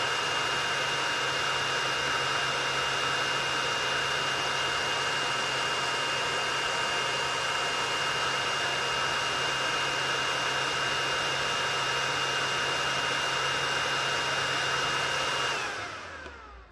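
A fan running steadily with a high whine over a low hum, then spinning down about fifteen seconds in, its pitch falling as it stops.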